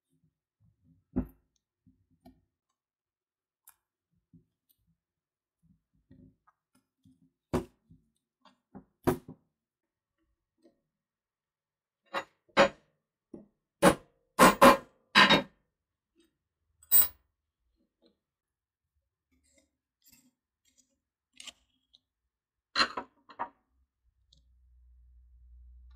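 Scattered sharp clicks and knocks, a dozen or so at uneven intervals with quiet between, the loudest in a quick cluster about halfway through. A faint low hum comes in near the end.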